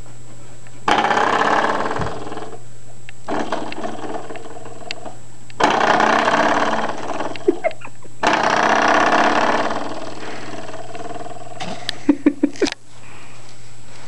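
Spring door stopper being flicked by a baby, twanging with a buzzing boing that starts suddenly and dies away over about two seconds, four times, then a quick rattle of short twangs near the end.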